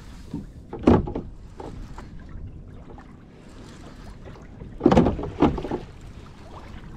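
Water lapping against a drifting fishing kayak's hull, with wind on the microphone, and two louder thumps about a second in and about five seconds in.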